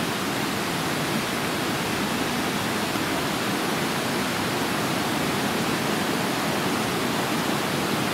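Flood-swollen river running fast in a strong current: a steady, even rush of water.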